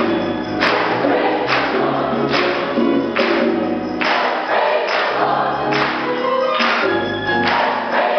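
Mixed choir and orchestra performing together live, the choir singing full chords over strings and harp, with sharp accents on a steady beat a little under once a second.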